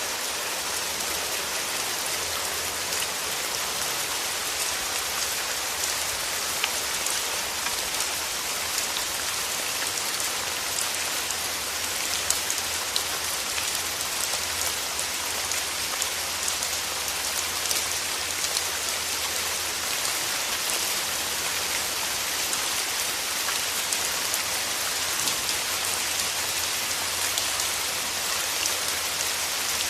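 Steady rain falling: a dense, even hiss with many individual drops ticking on a surface.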